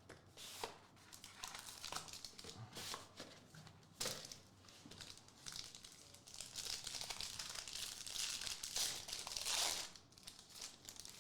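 A trading card pack's plastic wrapper crinkling and tearing as it is opened by hand, with cards being handled. The crinkling comes in irregular bursts and is loudest in a long stretch past the middle.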